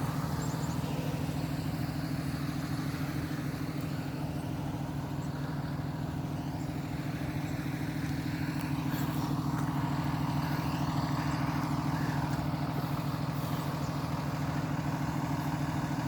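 A vehicle engine running at a steady idle, with an even low hum.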